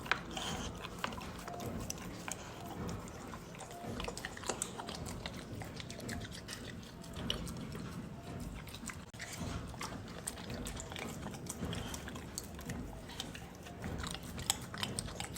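Dogs chewing and eating a homemade dog cake, with irregular wet smacks and small clicks of jaws throughout.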